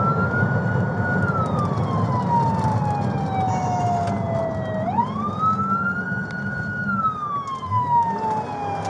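Police car siren on a slow wail, heard from inside the pursuing patrol car over engine and road noise. The tone climbs, holds, then slides slowly down over about four seconds, and climbs again about five seconds in.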